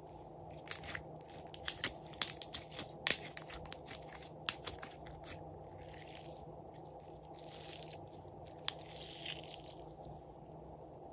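Glossy slime squeezed and stretched by hand: a run of sharp sticky clicks and pops for the first five seconds or so, then softer smearing sounds as it is pulled out and folded.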